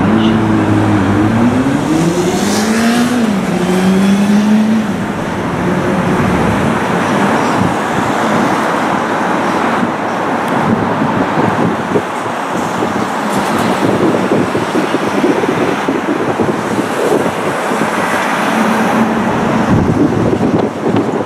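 Docklands Light Railway train running on the curving viaduct track toward the station: a steady wash of wheel and rail noise. Over the first five seconds an electric traction-motor whine rises and falls in pitch.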